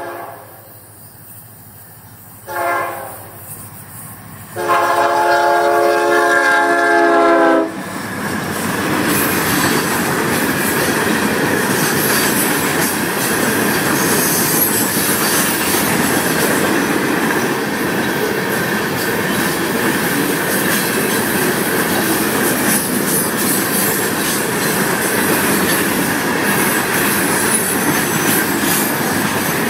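Freight diesel locomotives sounding their air horn for a grade crossing: the end of one blast, a short blast, then a long blast lasting about three seconds. The locomotives and a string of rock hopper cars then pass close by in a steady loud rumble with rattling wheel clatter.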